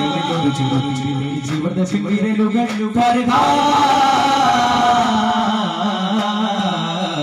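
Duff muttu: a group of men chanting a devotional song together, with a few strokes on daf frame drums. A long note is held from about three seconds in.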